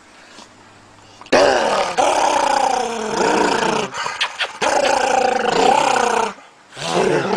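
A dog growling in long, drawn-out grumbles that rise and fall in pitch, starting about a second in, breaking off briefly near the end, then starting again.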